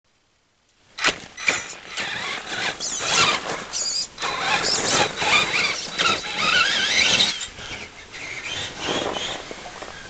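Traxxas Summit electric RC monster truck driving off through snow: its motor and gears whine, rising in pitch as it speeds up, over the noise of its tyres churning the snow. The sound starts suddenly about a second in and grows fainter over the last few seconds as the truck pulls away.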